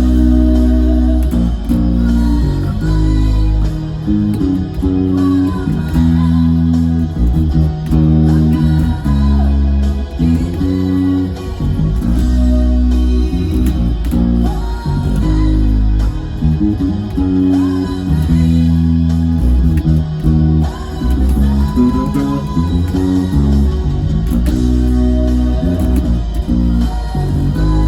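Electric bass guitar played along with a recorded rock ballad that has guitars. Deep bass notes change every second or two.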